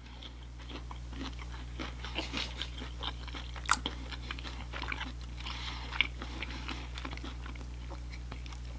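A person chewing and biting food close to the microphone: irregular wet crunching, with two sharper crunches about four and six seconds in.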